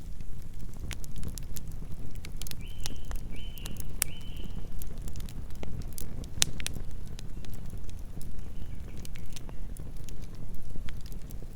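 Wood campfire burning with a steady low rumble and frequent sharp crackles and pops. Three short high chirps come quickly one after another about a quarter of the way in, and fainter ones follow later.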